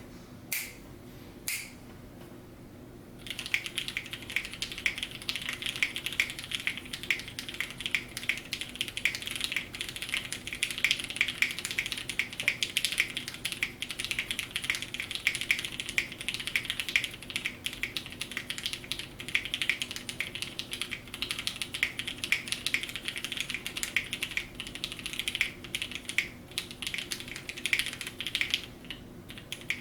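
Custom mechanical keyboard with lubed vintage Cherry MX Black linear switches on an FR4 plate with GMK keycaps, being typed on fast and continuously. Two single clicks come first, then a dense run of keystroke clacks starts about three seconds in and pauses briefly near the end.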